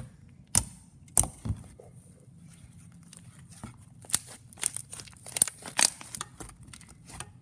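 Half-butter slime, with Daiso clay mixed in, being squished and played with by hand, giving sharp, irregular clicks and pops. They come scattered at first and crowd together about four to six seconds in.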